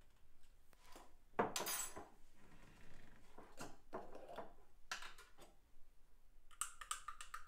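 Metal measuring spoon clinking against glass jars and a jar lid being handled while teaspoons of liquid kelp are measured out. Several separate clinks and knocks, the loudest about a second and a half in.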